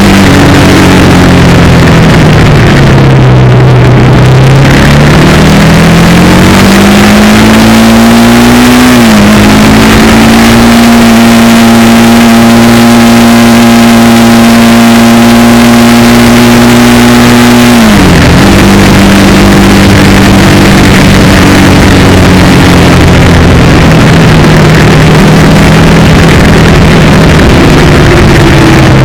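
Motorcycle engine running under way. Its pitch falls, climbs again, then drops sharply about nine seconds in and again about eighteen seconds in, holding steady between the drops, like gear changes. The engine is loud, with a constant rush of noise underneath.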